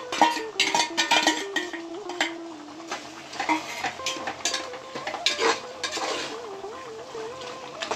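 A metal spoon stirring and scraping in a metal cooking pot, with irregular clanks over food sizzling as it fries.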